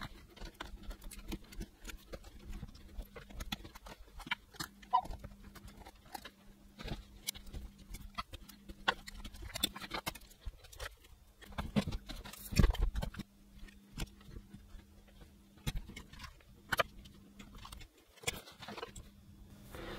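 Scattered small clicks, taps and knocks of hands and a small screwdriver working inside an opened MacBook Pro, as its logic board is unscrewed and lifted out of the aluminium case.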